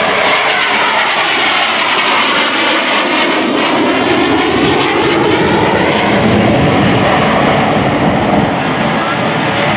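Lockheed Martin F-22 Raptor's twin Pratt & Whitney F119 turbofans, loud and steady as the jet flies by, with sweeping tones shifting in pitch through the noise as it passes.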